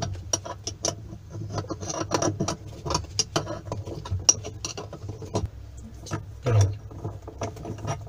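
Irregular metallic clicks and light scraping from a homemade bushing puller as its centre bolt is turned by hand over a stuck washing-machine agitator bushing, with a duller knock of the tool being handled about six and a half seconds in.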